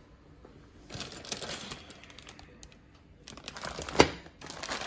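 Clear plastic parts bags crinkling and rustling as they are handled, with a single sharp knock about four seconds in, as of something set down on a hard surface.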